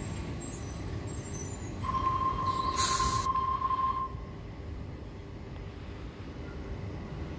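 Sydney Trains double-deck electric train braking to a stop at a platform: a steady low rumble, a single high brake squeal held for about two seconds, and a short burst of air hiss from the brakes as it halts.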